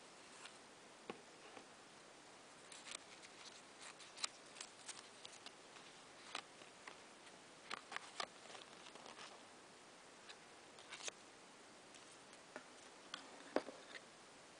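Faint clicks and paper rustles of a small cardboard jewellery box and its printed leaflet being handled, with one sharper click near the end, over a quiet hiss.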